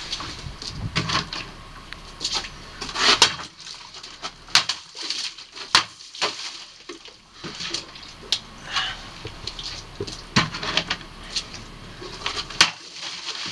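Plastic gallon water jugs being set down and handled, and a Cold Steel Heavy Machete chopping into a water-filled jug with water splashing out. A string of knocks and sharp impacts, the loudest about three seconds in.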